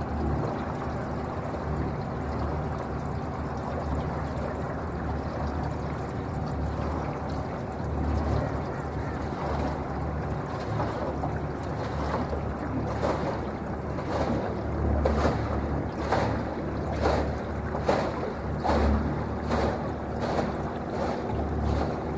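Electric boat under way with a steady low rumble of water and wind on the microphone. From about halfway, small waves slap against the hull about once a second.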